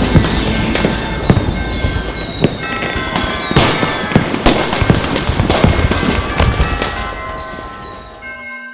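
Fireworks sound effect: repeated sharp bangs and crackling with falling whistles, thinning out and fading away near the end, while steady held musical tones come in underneath.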